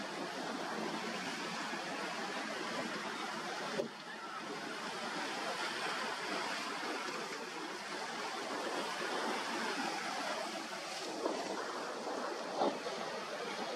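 Rough, choppy inlet water rushing and splashing as boats cut through the waves, a steady wash of surf noise, with a couple of sharp splashes near the end.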